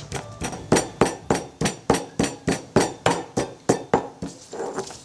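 Pestle pounding ginger, garlic, red pepper and salt in a mortar: a steady run of sharp strikes, about three a second.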